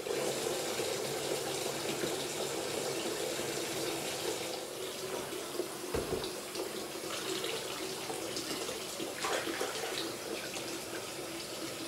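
Kitchen mixer tap running steadily into a plastic bucket in a stainless-steel sink, filling it with about 4 or 5 litres of warm water. A brief low knock about halfway through.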